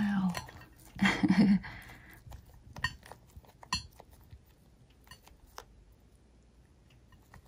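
Light clicks and taps of a rice-paper roll being handled over a ceramic plate, with a brief voice sound about a second in.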